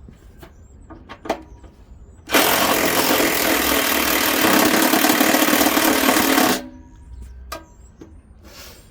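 A 14.4-volt cordless impact driver hammering on a screw for about four seconds, starting a couple of seconds in and cutting off suddenly. The screw spins without coming out because it is stripped in what it screws into, a nut held in the washer drum's plastic paddle.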